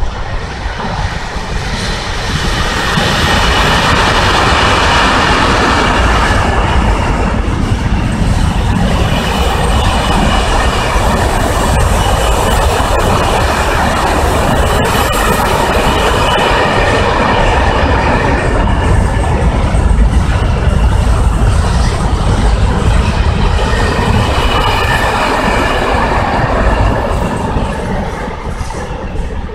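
Intermodal freight train passing close by: wagon wheels clattering over the rails, with some squeal from the wheels. It swells about two seconds in and fades near the end as the train goes by.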